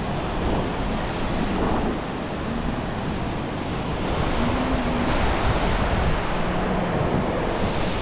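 Ocean surf washing up a sandy beach, with wind buffeting the microphone.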